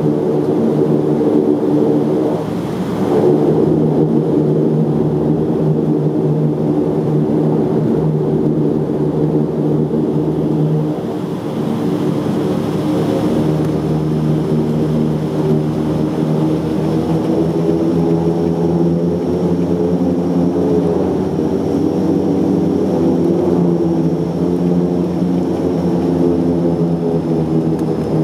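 Saab 2000 turboprop airliner's Allison AE 2100 engines and six-bladed propellers running, heard from inside the cabin as a loud, steady, multi-tone propeller drone with a faint high turbine whine. The tones shift slightly in pitch in the last third.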